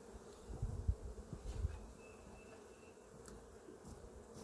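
Honeybees buzzing around an open hive as its frames are handled, a steady hum with a few soft low thumps in the first second or so.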